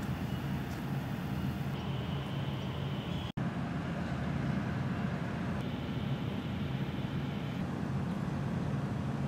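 Steady outdoor ambient noise with a low rumble. The sound cuts out for an instant about three seconds in.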